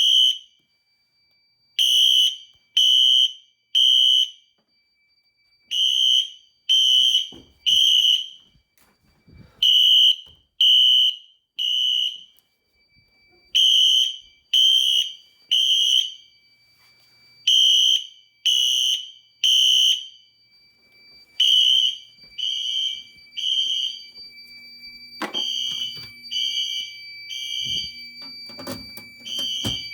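Wheelock Exceder fire alarm horns sounding together in the temporal-three evacuation pattern: three short blasts, a pause, repeating every four seconds. This is a system in full alarm. A few seconds in, a steady high piezo tone from the alarm panel comes on under the horns.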